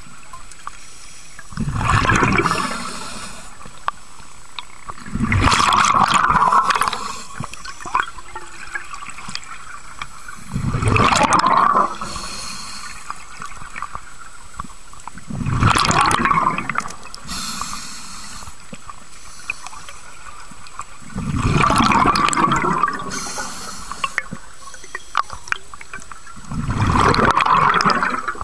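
Scuba diver breathing through a regulator underwater: six exhalations, each a rush of bubbles lasting about a second and a half, coming about every five seconds, with a quieter hiss between them.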